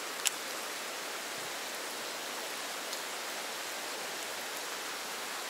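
Steady hiss of water, with a single sharp click a quarter of a second in.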